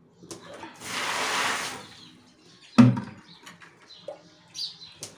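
A 19–20-litre bucket of water poured into a hollow in a dry heap of gravel, sand and cement mix, a rushing splash lasting about a second. Just under a second and a half later comes a single sharp knock, the loudest sound.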